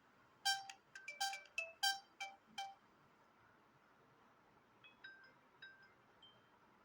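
Samsung Galaxy S6 built-in tone playing: a quick melody of about eight bright, bell-like notes over the first couple of seconds, then, after a pause, a quieter run of short notes.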